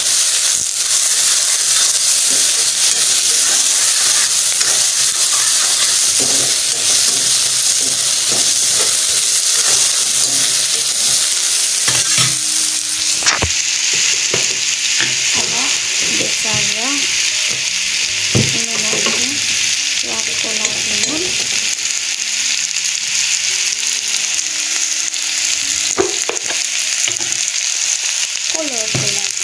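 Chopped onion and garlic sizzling in hot oil in a pan, stirred with a spatula that scrapes and clicks against the pan. The sizzle eases slightly about halfway through.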